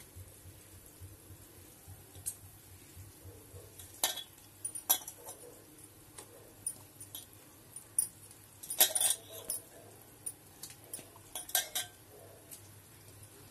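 Scattered metallic clinks and light clatter of a steel bowl and a kadai as soaked besan pakoras are put into simmering kadhi, over a low steady hum. The loudest cluster of clinks comes about nine seconds in.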